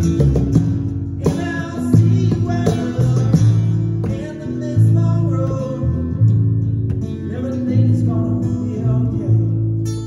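Small band playing a song: electric bass, strummed acoustic guitar and a lead vocal.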